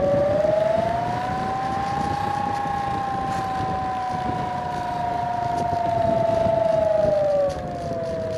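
Bixler 3 RC plane's brushless electric motor and pusher propeller whining in flight. The pitch rises about a second in as the motor speeds up, holds, then drops near the end, with wind rushing over the microphone.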